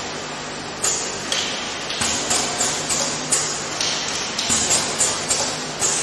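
Automatic essential-oil filling and capping machine running: a steady hum under short hisses and clicks that repeat about twice a second.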